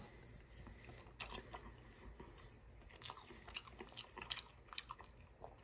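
Faint close-up chewing of a soft-breaded chicken strip: irregular small wet mouth clicks and light crunches.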